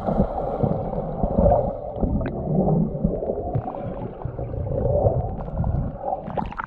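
Muffled underwater gurgling and rumbling of churned water and air bubbles, heard with the microphone submerged in a pool as swimmers move through it. Near the end the microphone breaks the surface and the sound opens up into splashing.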